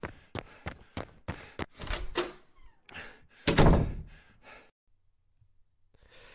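Sound-effect sequence of quick, evenly spaced thuds, about three a second, then a heavy slam about three and a half seconds in.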